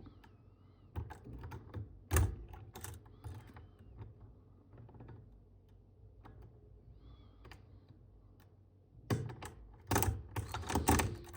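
Lock pick and tension wrench clicking and tapping against the pins inside a Mul-T-Lock euro cylinder's keyway while single-pin picking its spool pins. A few sharp clicks come about one to three seconds in, then a dense run of clicks in the last two seconds.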